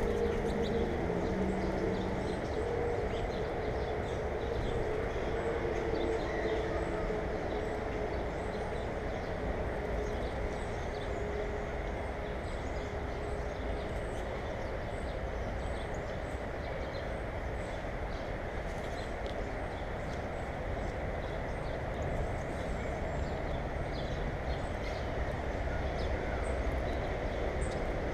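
Steady low outdoor background noise, with a faint hum that fades away over the first dozen seconds and faint short high chirps now and then.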